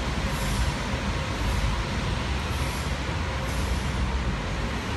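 Steady outdoor traffic noise with a low rumble.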